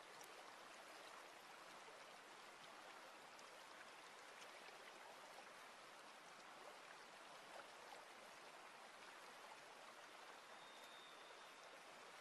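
Faint, steady trickle of shallow water running over stones in a small garden stream, with scattered tiny drips.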